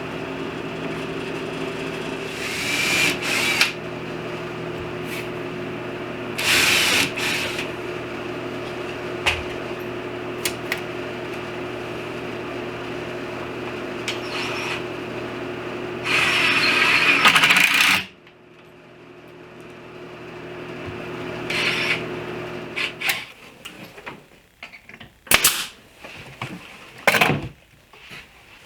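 Power tools running in a woodworking shop: a steady motor hum with a few short, louder bursts, cutting off abruptly about two-thirds of the way through. A few sharp knocks and clicks follow.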